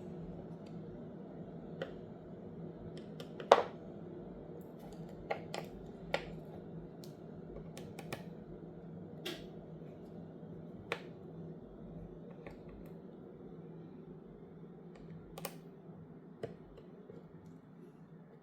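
Irregular small clicks and taps of tools on the opened smartphone's internal parts during disassembly, about a dozen in all, the sharpest about three and a half seconds in, over a steady low hum.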